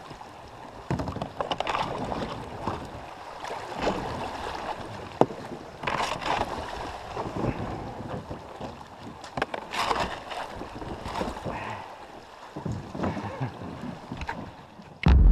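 Kayak paddle strokes splashing in a moving river, a stroke every second or two, over the steady rush of the current. Loud music cuts in at the very end.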